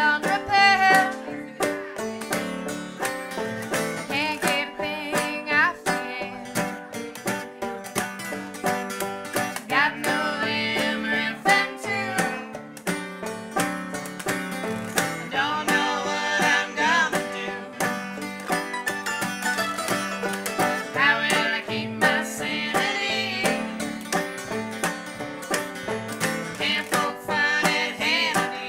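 Live acoustic string band playing a bluegrass-style song: banjo, mandolin and acoustic guitar picking together, with a woman singing lead and men singing along.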